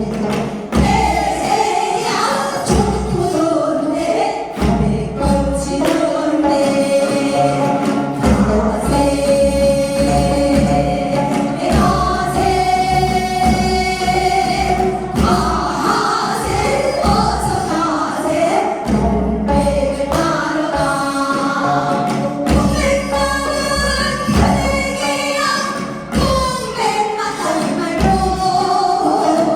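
Korean folk song (minyo) sung by several voices with a wavering vibrato over a steady low beat of accompaniment.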